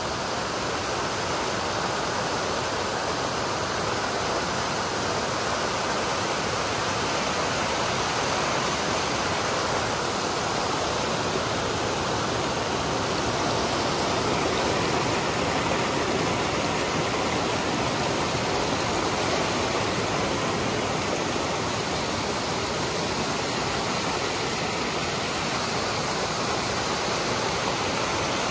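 Creek in heavy flow rushing and splashing over a rock ledge and stones, a steady, loud rushing of white water close to the microphone.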